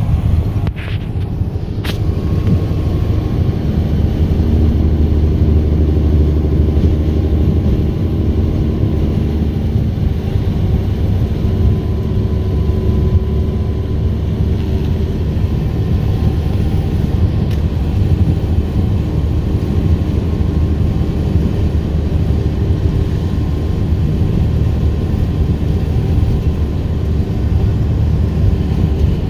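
Steady low drone of a loaded 2011 Peterbilt semi truck's diesel engine and tyre and road noise, heard from inside the cab while cruising. There is a brief dip with a couple of clicks about a second in.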